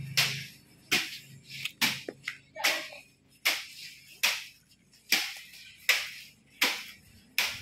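A series of sharp knocks, about one every three-quarters of a second, with a quick cluster of several around two seconds in.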